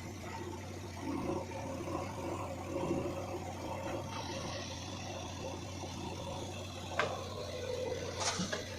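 Diesel engine of the digging machinery running steadily with a low hum, and a sharp click about seven seconds in.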